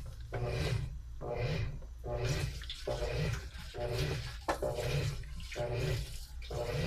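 Washing machine agitating a load: water sloshes in surges about once a second over a steady low motor hum.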